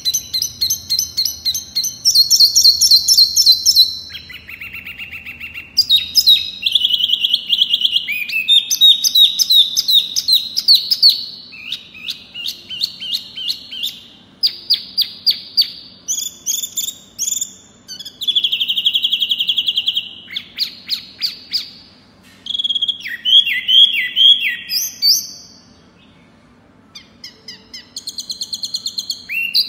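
Caged wambi mini songbird singing: quick strings of sharp repeated chirps in ever-changing phrases, some pitched higher and some lower, with short pauses between phrases and a gap of about two seconds near the end.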